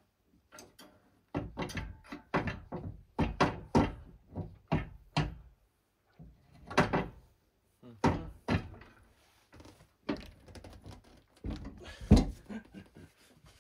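An irregular series of knocks and clunks from metal parts and tools being handled and fitted: a quick run of about a dozen in the first few seconds, then scattered single ones, the loudest near the end.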